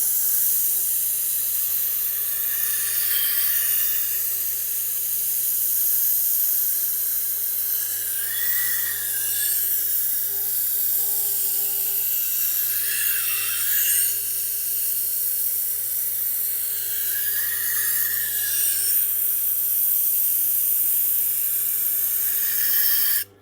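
Tormek T8 wet sharpening machine running: a steady motor hum under a continuous high hiss of steel grinding against the stone wheel, swelling a few times. It cuts off abruptly just before the end.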